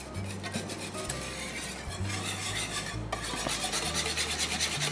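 Thick cheese sauce being stirred in a pan, the utensil scraping and slapping through it in quick, regular strokes.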